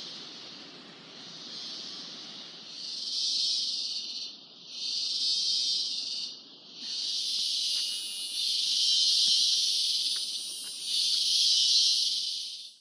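Cicadas buzzing in a high, hissing drone that swells and fades in waves of a second or two, growing louder about three seconds in.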